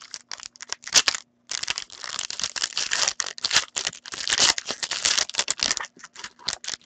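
Foil wrapper of a Panini Dominion hockey card pack being crinkled and crumpled by hand as the pack is opened. The crackling is dense through the middle and thins out near the end.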